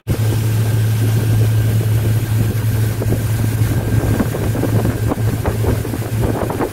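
Small motorboat's engine running steadily at speed, a constant low drone, with wind buffeting the microphone.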